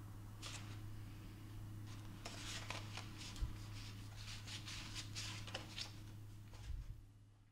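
Instant-film photo prints sliding and rubbing against each other as fingers fan and shuffle through them: soft, short paper scrapes and rustles, thickest in the middle, over a steady low hum, all fading out at the end.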